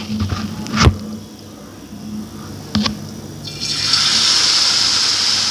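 Cornflour-coated raw potato strips dropped by hand into hot oil in a frying pan, which starts sizzling about three and a half seconds in and keeps up a steady hiss.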